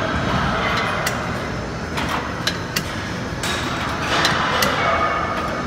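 Gym weights clanking, metal on metal, several times at irregular intervals over the steady din of a busy weight room.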